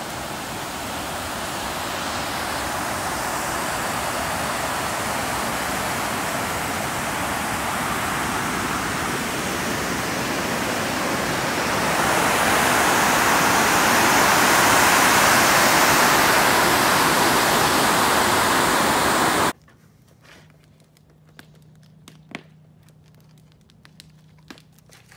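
Water pouring over a concrete dam spillway: a steady rushing sound that grows louder about twelve seconds in. It cuts off suddenly, leaving a faint background with a few soft clicks.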